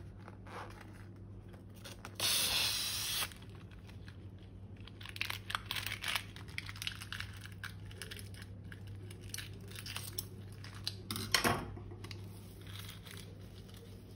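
Balloon rubber and sticky slime being pulled apart, with a short hiss about two seconds in and scattered soft crackling through the middle.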